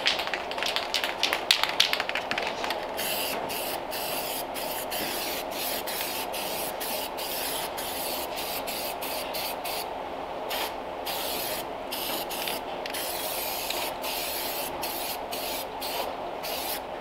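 Hand-held angle grinder running against the rusty steel sheet metal of a Model A cab: a steady motor hum under a harsh hiss that cuts in and out every fraction of a second as the tool is worked on and off the panel, with heavier chattering contact in the first couple of seconds.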